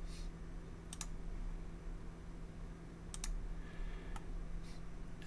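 A few sharp clicks of a computer mouse, a second or two apart, over a faint steady low hum.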